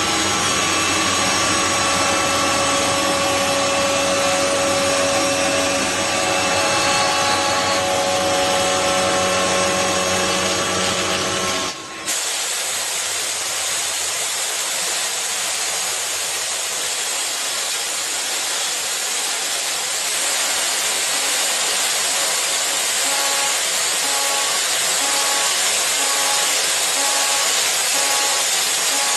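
Metalworking machine tools running: a steady whine made of several held tones for about twelve seconds, then an abrupt change to a hissier machining noise with a faint, regularly repeating tone.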